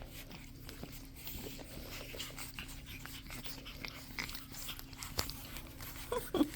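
Pug puppies playing, with small scattered clicks and scuffles and a couple of short puppy whimpers near the end.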